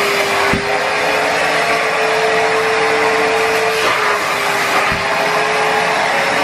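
Numatic Henry Wash carpet and upholstery cleaner's vacuum motor running steadily with a slightly wavering whine, sucking the sprayed water back out of a fabric sofa through the upholstery nozzle. A couple of brief knocks come as the nozzle is moved over the cushions.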